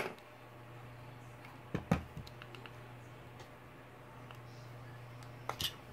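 A click as the rebuilt DJI Spark drone is switched on for a test, then a low steady hum from the powered-up drone that keeps running. A few small clicks and ticks come about two seconds in, and a brief sharper noise near the end.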